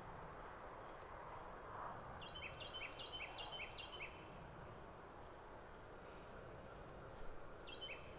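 A small bird calling: a quick run of about six short, high, repeated notes about two seconds in, and two more notes near the end, over a faint outdoor background hiss.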